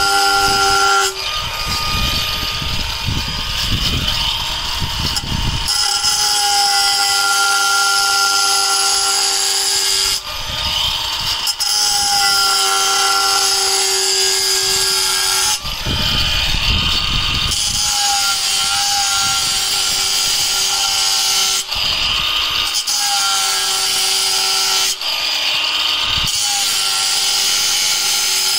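Cordless angle grinder with a cutting disc slicing through a stone coping slab. Its steady whine turns to a rougher grinding noise several times as the disc bites into the stone, then comes back as the cut eases.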